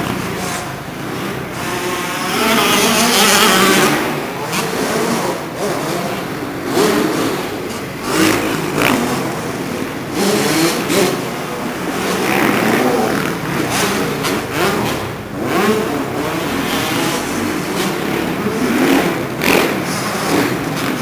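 Motocross bike engines revving up and down as the throttle is opened and shut over the jumps, loudest about two to four seconds in.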